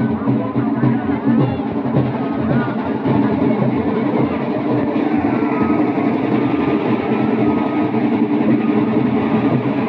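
Music with guitar, playing steadily throughout.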